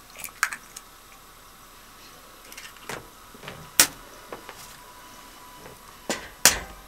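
A few sharp clicks and knocks of eggs being handled and tapped on the rim of a glass pot of ramen. The loudest are a single knock near the middle and two close taps about six seconds in, as an egg is cracked.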